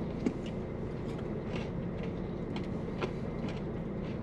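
Steady low hum inside a parked car's cabin, with faint scattered light clicks and a couple of slightly sharper ticks, about a third of a second in and about three seconds in.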